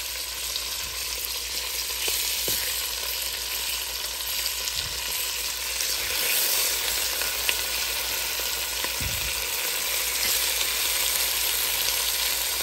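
Raw chicken legs sizzling in hot olive oil and butter, a steady frying hiss that grows a little louder as more legs are laid into the pan.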